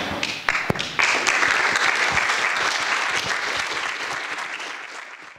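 Audience applauding, the clapping building up in the first second, holding steady, then easing off a little before cutting off suddenly at the end.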